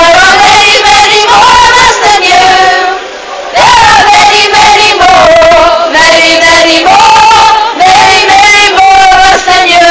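Women's voices singing together, loud and close to the microphone, with long held notes in two phrases and a short break about three seconds in.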